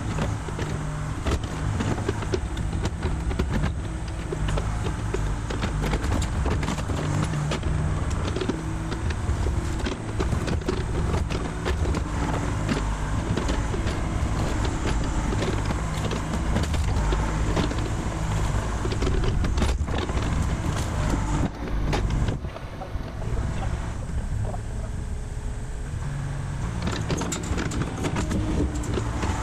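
Mini excavator's diesel engine running steadily under load as the machine works, with frequent knocks and clatters of broken deck boards being grabbed and dropped by the bucket.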